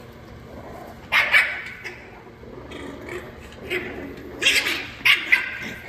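French bulldog puppies yipping and barking in short bursts while play-fighting: a pair of yips about a second in, then three more in quick succession near the end.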